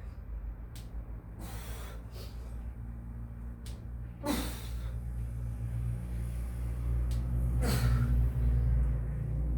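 A person breathing hard with exertion, with a forceful exhale about every three seconds, over a steady low rumble.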